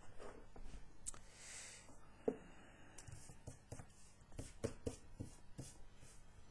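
Sheet of drawing paper being handled and slid about on a desk: a short faint rustle, one knock, then a run of small taps and clicks.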